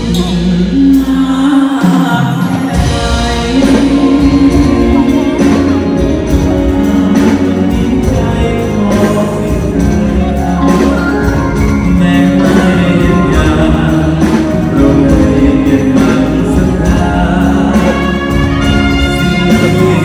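Loud live band music played through a stage PA, with a singer holding long melodic notes into a microphone over drums.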